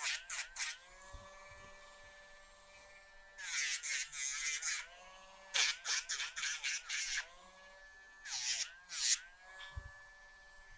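Handheld rotary nail grinder whining as it files a dog's toenails. Its pitch dips and recovers each time it bears on a nail, with a gritty grinding sound in about four passes.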